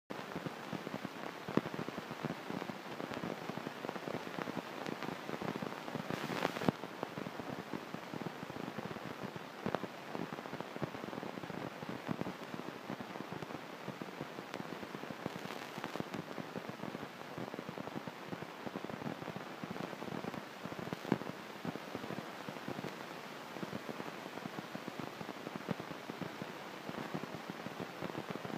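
Dyna Beads ceramic balancing beads rattling down a clear plastic tube from a squeeze bottle into a motorcycle's tubed rear tyre: a dense, steady patter of tiny clicks, with a brief louder rush about six seconds in.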